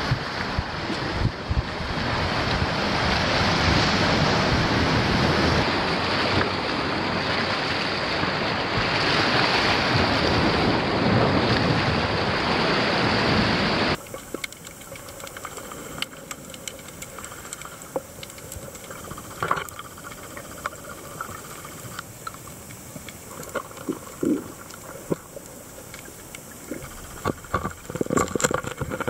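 Wind on the microphone and surf washing against sea rocks, a steady rush of noise; about halfway through it cuts abruptly to the muffled quiet of an underwater recording, with scattered clicks and pops.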